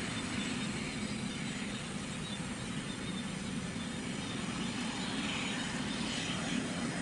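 Boeing 737 Classic's CFM56 turbofan engines running as the jet rolls along the runway: a steady low rumble.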